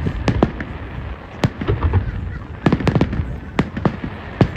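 New Year's fireworks: many bangs and cracks going off at irregular intervals, some close together and some overlapping, over a steady low rumble of more distant bursts.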